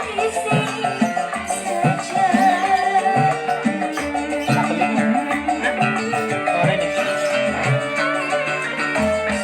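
A song with drums and a melody line played loud through a miniature sound system driven by a class D amplifier, its low beats repeating throughout.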